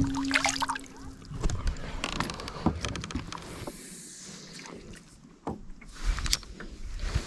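Scattered knocks and clicks of gear being handled aboard a small fishing boat, with a steady low hum that fades out in the first second and a short hiss near the middle.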